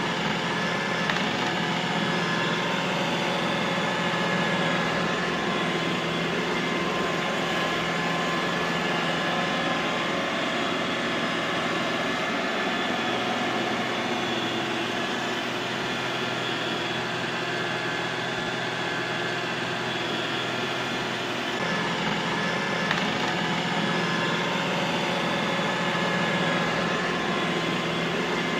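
Robot vacuum cleaner running: a steady motor whir with several steady whining tones. The low hum drops slightly about three-quarters of the way through and picks up again soon after.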